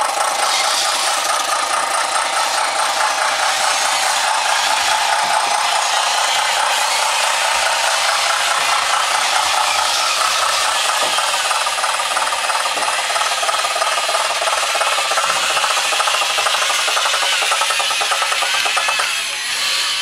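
Small electric motors and plastic gearboxes of radio-controlled model construction machines running, giving a steady buzzing, whirring rattle that eases slightly near the end.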